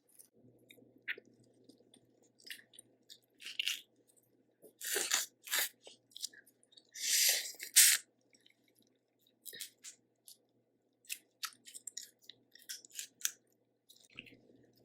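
Close-miked chewing and wet mouth smacks of a person eating boiled shrimp, in short irregular clicks, with two longer, louder bursts of noise around the middle.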